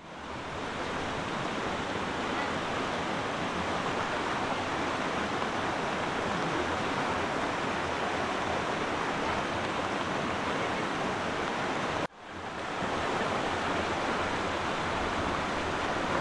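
A river running past, a steady rush of water. It cuts out suddenly about twelve seconds in and swells back up within a second.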